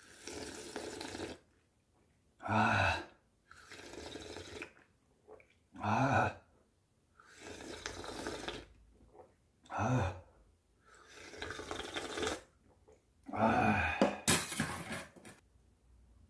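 Hot clam-noodle-soup broth being sipped from a bowl in four long slurps. Each slurp is followed by a short, low, voiced "ahh" of a diner savouring hot soup. A brief clatter of tableware comes near the end.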